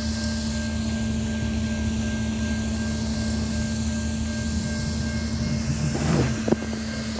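A steady mechanical hum with one constant low pitch over a low rumble. About six seconds in there is a brief rustle of the phone being handled and a sharp knock.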